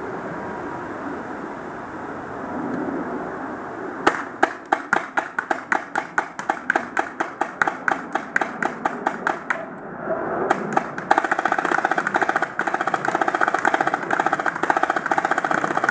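Tippmann X7 Phenom paintball marker firing. A steady string of shots comes at about five a second from about four seconds in. After a brief pause near the ten-second mark, a much faster, denser stream of shots follows.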